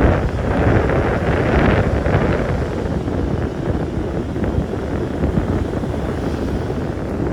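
Wind buffeting the microphone: a loud, irregular rushing noise, heaviest in the low end, easing slightly toward the end.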